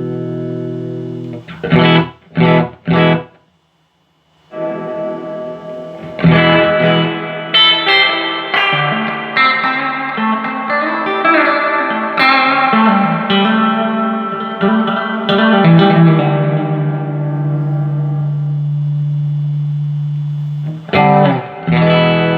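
Electric guitar played through a Fender Hot Rod Deluxe tube combo amp, freshly repaired with a new pair of 6L6GC power tubes. A held chord gives way to three short stabbed chords and about a second of silence, then a run of single notes that settles on a long held low note, and two more stabs lead into a ringing chord near the end.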